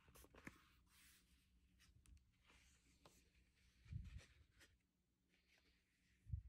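Faint handling of a cardboard gatefold record jacket: card rubbing and sliding under the hands, with soft low thumps about four seconds in and again near the end as the jacket is opened out and laid flat.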